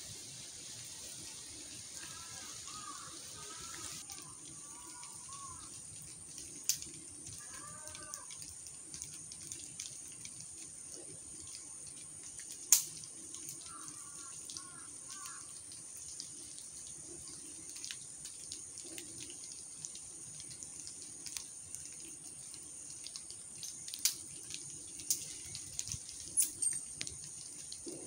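Rainwater dripping from wet trees: scattered sharp drops land now and then, one loud drop about halfway in and a cluster near the end. A bird sings short warbling phrases a few times over a steady high hiss.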